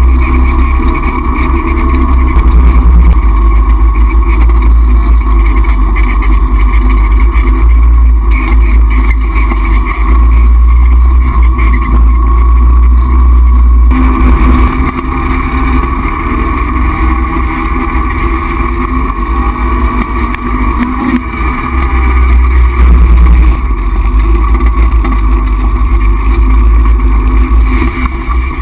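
ATV engine running steadily and loudly as the four-wheeler rides along a dirt trail, with a change in its sound about halfway through.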